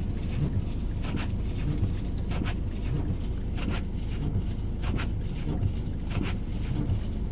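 Footsteps crunching through deep snow at a steady walking pace, about one and a half steps a second, over a steady rumble of wind on the microphone.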